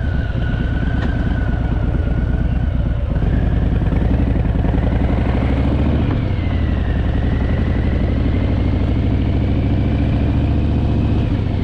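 Harley-Davidson Fat Boy's V-twin engine running while being ridden, steady, pulling a little harder and louder about three seconds in.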